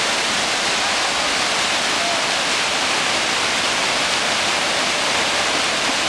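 Wide waterfall of many streams falling down a rock cliff and cascading over boulders: a steady, even rush of falling water.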